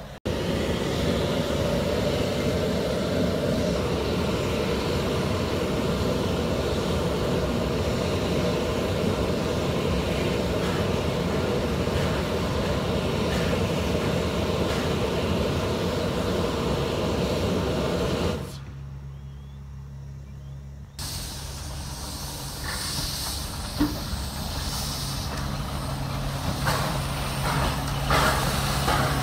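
Narrow-gauge steam locomotive hissing steam steadily at close range; after a short quieter break about two-thirds through, a steam locomotive draws close with hissing steam and scattered knocks, growing louder near the end.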